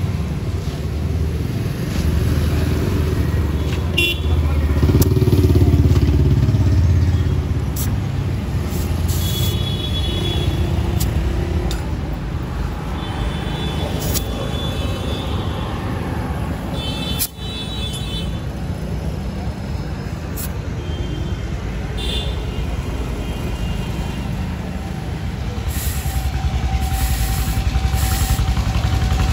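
Steady rumble of a road vehicle on the move in traffic, with short horn toots sounding now and then.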